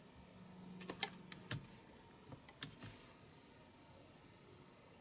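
Key presses on the small keyboard of a Poqet PC palmtop: a few scattered key clicks, most of them in the first three seconds.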